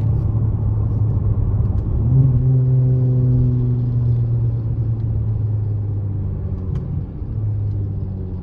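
Dodge Challenger SXT's 3.6-litre V6 running through BigBoz 5 mufflers while driving: a steady low exhaust drone that rises in pitch about two seconds in as the revs climb, then eases slowly back down.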